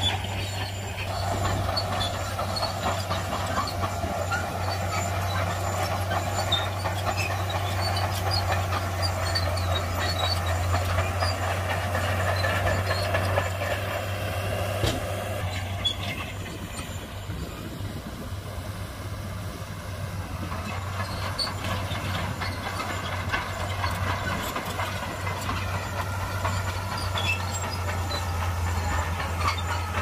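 Heavy earthmoving machinery's diesel engine running with a steady low hum, a higher strained note over it that drops away about halfway through, and scattered light clicks with one sharper knock.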